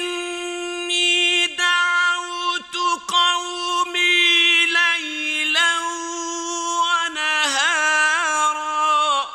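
A man reciting the Quran in the melodic mujawwad style, drawing out long, high held notes on a few syllables. Near the end he adds a wavering ornamented turn, and the phrase stops suddenly.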